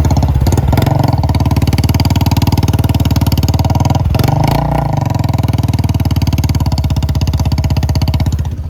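Royal Enfield Bullet 350's single-cylinder engine running loud through a modified aftermarket exhaust, a steady fast thump under way. The beat briefly drops out about four seconds in, then picks up again, and falls off near the end.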